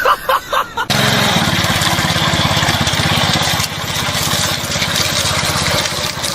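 An engine starts up abruptly about a second in and runs steadily with a rapid, even beat, dropping a little in level past the middle.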